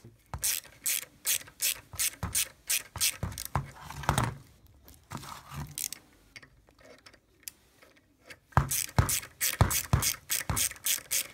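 Ratchet wrench clicking as it loosens the camshaft sprocket bolts in a 107–125 cc ATV engine's cylinder head, about three clicks a second. After a quieter few seconds the clicking resumes, louder.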